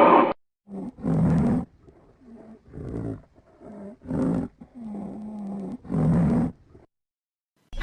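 Sound-effect calls of a fictional Acrocanthosaurus: a loud roar cuts off just after the start, followed by a string of about eight short, separate calls with brief gaps, one held as a steady low growl around the middle. Near the end another loud roar begins.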